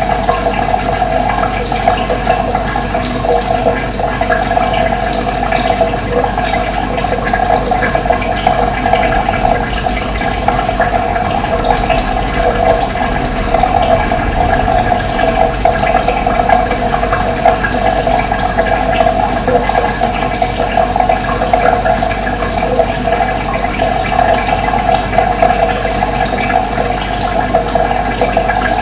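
Running water flowing steadily, an even rushing sound with no pauses.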